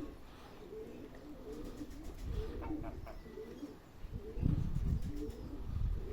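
Domestic pigeons cooing over and over, with gusts of wind buffeting the microphone about halfway through and again near the end.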